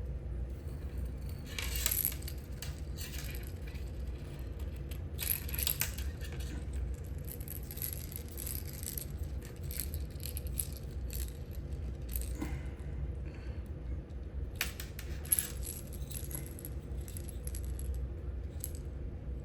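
Small plastic fishing tackle parts (bead-filled rattles, beads and floats) clicking and clattering as they are handled and threaded onto a line, in irregular light clicks with a few busier rattling flurries. A steady low hum runs underneath.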